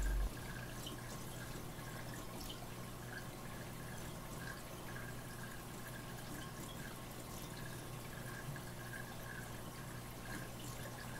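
Reef aquarium water circulating: a steady trickle with small drips and splashes over a steady low hum. A louder low rumble cuts off right at the start.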